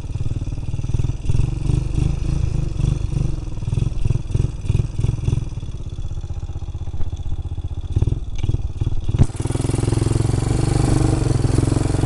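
A four-wheeler ATV's engine running while riding over a rough trail, its sound pulsing unevenly. About nine seconds in it changes abruptly to a steadier, louder running noise.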